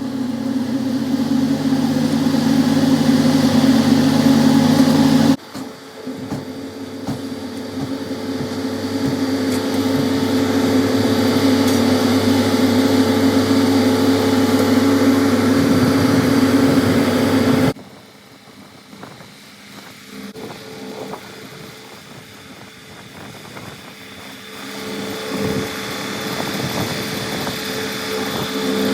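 Heavy road-construction machinery engines running steadily. The sound changes abruptly twice, about five seconds in and again near eighteen seconds, after which it is quieter and builds up again toward the end.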